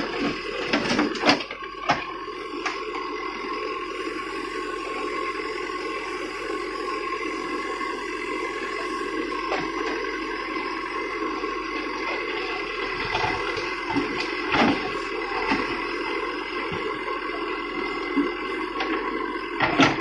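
Terex backhoe loader's diesel engine running steadily under hydraulic load while the backhoe digs. Rubble and stones clatter against the bucket several times: a cluster about a second in, again near two seconds, around fourteen and a half seconds and near the end.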